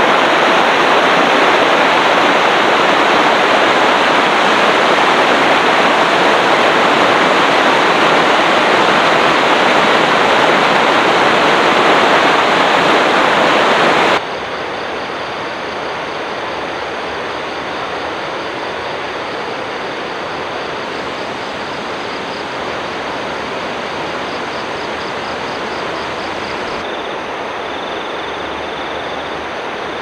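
Rushing white water of a rocky river's rapids, a loud steady rush. About fourteen seconds in it drops suddenly to a quieter, even rush.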